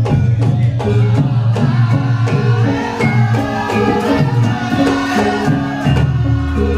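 Loud music played through a PA sound system during a sound check: percussion strokes over held pitched notes, with a heavy bass that comes in about six seconds in.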